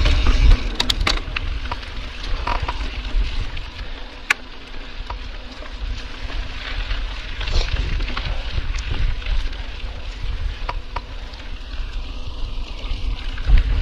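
Mountain bike riding fast down a dirt trail: wind rumbling on the camera microphone and tyre noise, with scattered sharp clicks and rattles from the bike over the ground. The wind rumble is strongest at the start and again near the end.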